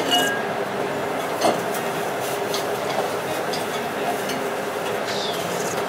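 Steady ramen-shop background noise with a low hum, broken by a few brief clinks of tableware; a short ringing clink comes right at the start and the sharpest one about a second and a half in.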